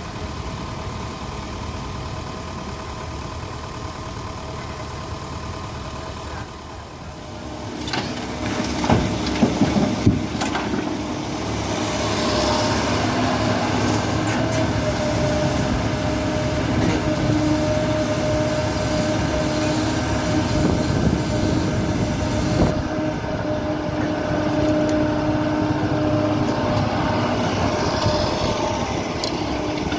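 Kobelco SK75 excavator's diesel engine running, growing louder about eight seconds in as the machine works under load, with a few sharp knocks and clanks from the bucket digging.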